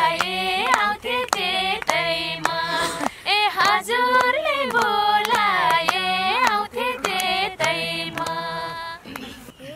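Group of women singing a Nepali dohori folk song without instruments, with hand claps keeping the beat about twice a second. The singing thins out near the end.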